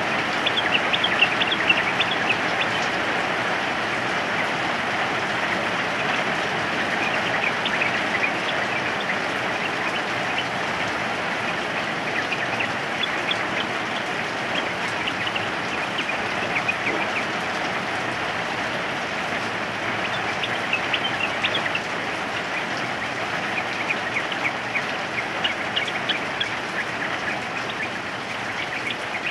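Steady rain falling, with a yellow-vented bulbul (trucukan) giving short, quick calls in clusters every few seconds.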